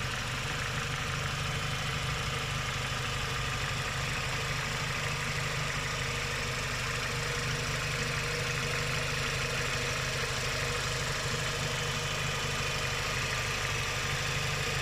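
Renault K4M 1.6-litre 16-valve four-cylinder petrol engine idling steadily with a fast, even tapping from the valve train. The tapping is the knock of hydraulic lifters, which the owner cures with an oil additive.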